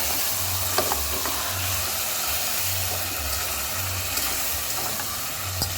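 Blended tomatoes and tomato paste sizzling in the hot oil of a cooking pot as they are stirred, a steady hiss with a couple of light knocks from the stirring spoon against the pot.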